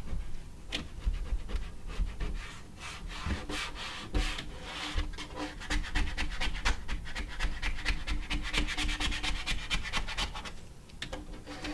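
Plastic ID card scraped over wet static-cling window film on glass in quick repeated strokes, squeegeeing the film flat to push out air bubbles, with a few low knocks.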